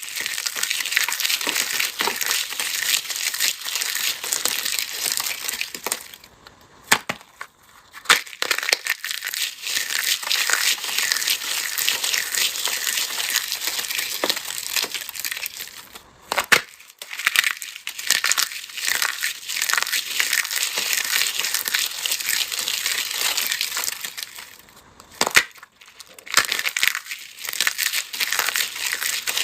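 Dry, crumbly material being crushed and crumbled in the hands: dense, continuous fine crackling and crunching, pausing briefly about six, sixteen and twenty-five seconds in.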